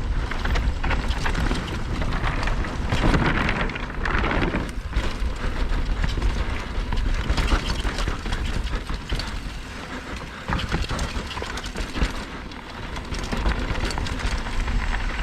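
Mountain bike descending a dirt downhill trail at speed: tyres rolling over rough ground, the bike rattling and knocking over bumps, and wind buffeting the microphone. It swells briefly about three seconds in.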